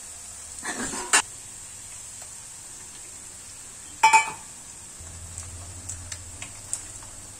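Chopped onion and green chilli sizzling in oil in a frying pan, with a spatula scraping through them and a sharp tap on the pan about a second in. A loud, short clink about four seconds in, as an egg is cracked into the pan.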